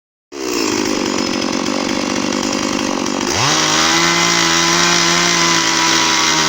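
Electric drill running: a rough, uneven whir for about three seconds, then the motor speeds up quickly into a steady whine.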